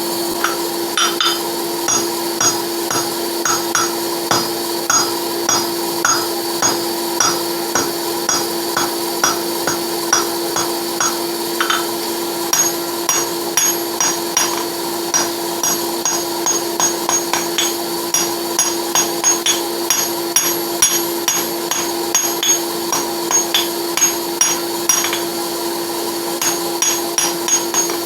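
Blacksmith's hammer striking hot steel on an anvil in a steady run of blows, about two a second, drawing a taper on the end of a horseshoe. A steady hum from the forge runs underneath.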